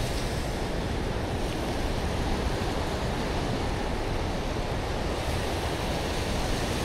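Steady wash of ocean surf breaking on a sandy beach, with wind noise on the microphone.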